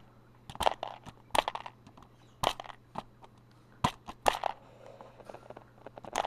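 Plastic keyboard parts clicking and snapping as they are pushed through and out of the keyboard by hand: a dozen or so irregular sharp clicks, the loudest about halfway through.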